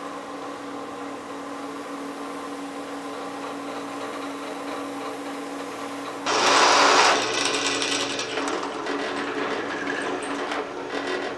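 Benchtop drill press motor running steadily. About six seconds in, a loud harsh cutting burst lasting about a second as the workpiece is worked on the spinning chuck, followed by lighter, rougher cutting noise.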